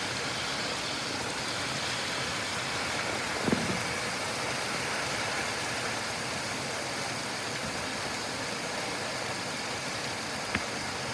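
Steady rain falling in a thunderstorm, an even hiss with no distinct thunderclap.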